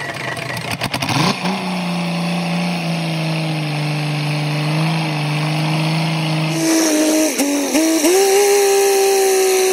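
Restored old engine catching about a second in and running at a steady speed with a clear even hum. About seven seconds in its speed rises unevenly, then holds at a higher pitch.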